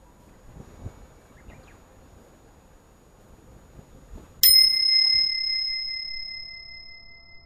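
A single bright bell ding about halfway through: a sharp strike, then a clear ringing tone that fades away over about three seconds. Before it there is only faint background noise.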